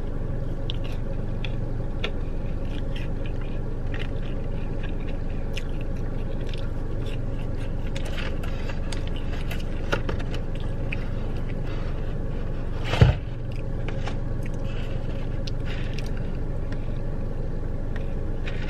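Steady low hum of a car interior, with chewing and small clicks and scrapes of eating; one loud thump about 13 seconds in.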